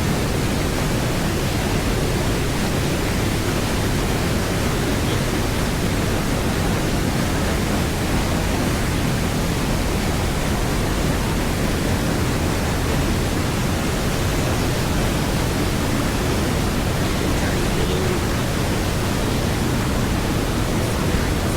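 Waterfall rushing, a loud, steady, unbroken noise heaviest in the low end.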